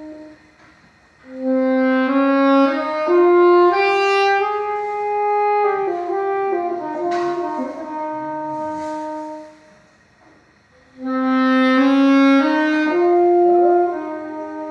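Saxophone playing a slow melody of held notes that step up and down, in two phrases with a short pause about ten seconds in.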